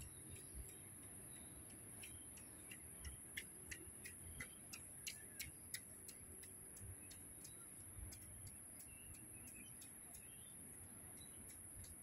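Near silence: a faint, steady high-pitched hiss, with a run of faint sharp ticks, about three a second, in the middle.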